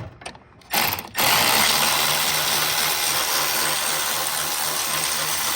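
M12 cordless impact wrench running in a subframe bolt: a few short bursts, then from about a second in a steady, continuous rattling hammer of the impact mechanism.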